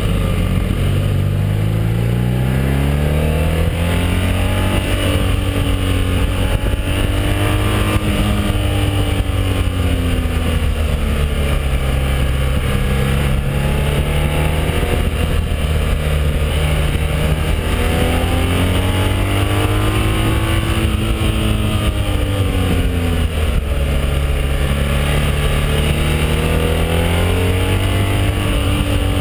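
BMW R1200 boxer-twin motorcycle engine heard from on board while riding down a winding mountain road, its pitch rising and falling several times as the rider rolls on and off the throttle through the bends. Wind rushes over the microphone throughout.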